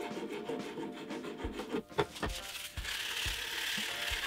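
A hand file rasping over beech wood in strokes, fairing a repaired leg wing into a stool leg, with a sharp knock about two seconds in.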